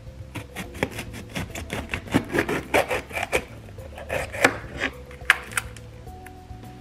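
A knife chopping on a cutting board: a quick, uneven run of strokes, several a second, that stops about five and a half seconds in. Background music plays underneath.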